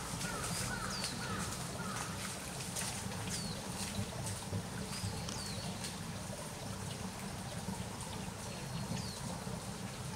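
Faint crackling clicks of branches being chewed by a young eastern black rhino, over a steady low rush, with a bird chirping briefly about four times.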